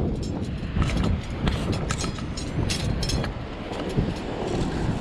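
Wind buffeting the microphone in a steady low rumble, broken by irregular sharp clicks and scuffs from footsteps on rough limestone and the metal cliff gaff knocking about as it is carried.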